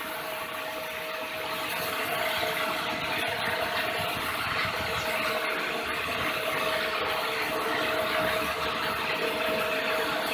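A belt-driven rig running steadily: an electric motor turning a gearbox and two generators through V-belts. It makes a steady whine over a spread of machine noise, and it grows a little louder over the first couple of seconds.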